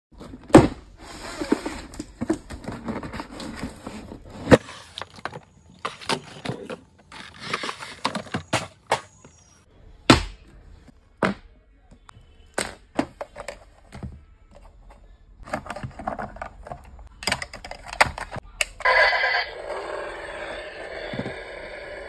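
Sharp clicks and knocks with short bursts of rustling and scraping as a toy RC car, its remote and its battery are handled on a table. A steadier rushing noise starts near the end.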